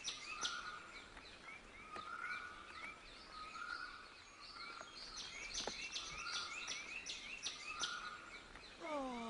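Small birds chirping and calling, many short overlapping calls repeating over and over at a faint level. Near the end a falling sweep of tones begins.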